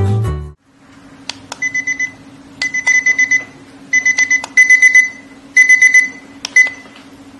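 Digital alarm clock beeping: a high electronic beep pulsing rapidly, about eight pulses a second, in short groups of four or five with brief gaps between. A few sharp clicks fall among the groups.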